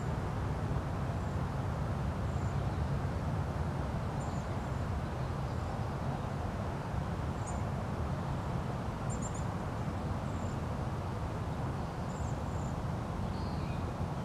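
Outdoor dusk ambience: a steady low rumble with faint, brief high-pitched bird chirps scattered throughout.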